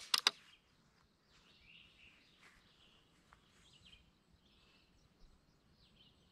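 Faint birds chirping over quiet outdoor background noise, after a couple of sharp clicks right at the start.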